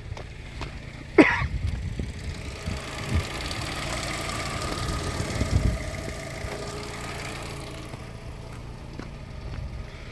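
Fiat 500 engine starting about a second in, with a short, loud rising squeal as it fires: the abnormal start-up noise, followed by the engine running steadily.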